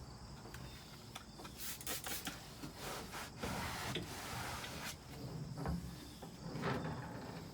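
Cloth scrubbing and wiping a surface with cleaner in short, irregular strokes, with a few light knocks.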